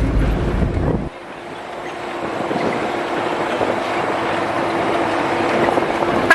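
Mitsubishi Canter-based bus running on the road, heard from the cabin. A loud low rumble with wind buffeting the microphone cuts off suddenly about a second in, leaving steadier running noise with a steady hum that slowly grows louder.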